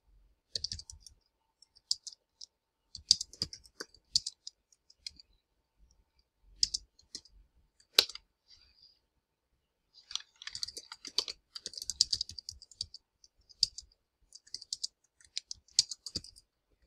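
Typing on a computer keyboard: bursts of quick key clicks with pauses between them, and one sharper keystroke about eight seconds in.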